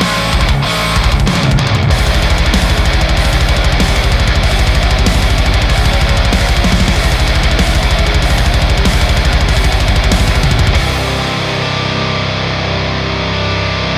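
Heavy metal song: high-gain electric guitar through a Diezel VH4 tube amp, with programmed drums driving a fast, steady kick-drum rhythm. About eleven seconds in the drums stop and a held guitar chord rings on.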